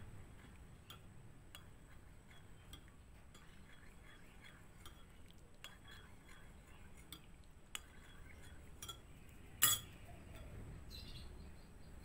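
Metal teaspoon stirring in a glass mug of ginger tea, clinking irregularly against the glass, with one much louder clink near the end.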